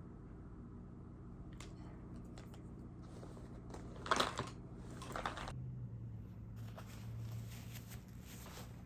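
Quiet room tone with a low steady hum and a few brief rustling or handling noises, the loudest about four seconds in.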